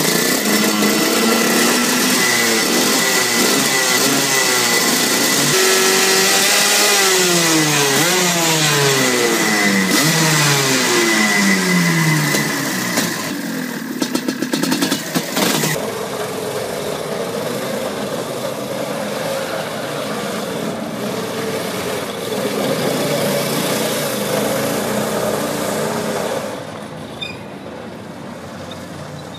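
Engine of a miniature VW bus pulling away and accelerating, its pitch climbing and dropping back several times as it runs up through the gears. After a cut, a different small vehicle's engine runs more steadily and more quietly.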